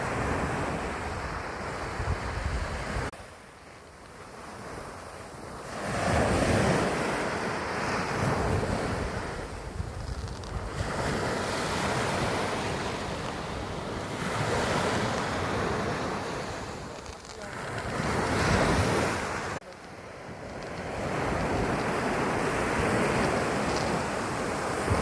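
Sea surf breaking on a beach, a steady wash of noise that swells and falls as each wave comes in, with wind buffeting the microphone.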